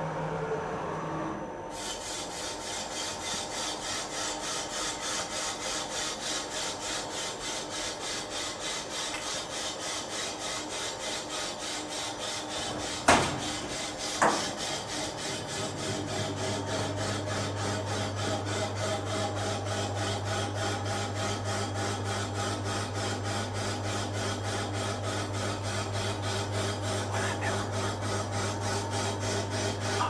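Vertical CNC alloy-wheel repair lathe cutting an aluminium alloy wheel at a raised feed rate: a steady scraping hiss from the cutting tool, pulsing regularly about twice a second. Two sharp knocks close together come near the middle, and a low hum comes in soon after.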